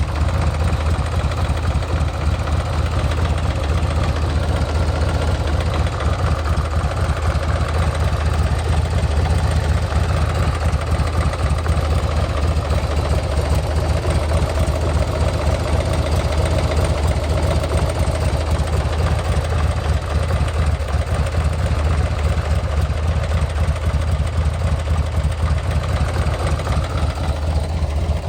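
Buell M2 Cyclone's air-cooled 1203 cc V-twin engine idling steadily, with a fast, even pulsing. It is running on freshly replaced lifters and still makes a mechanical noise that the owner cannot judge as normal or abnormal.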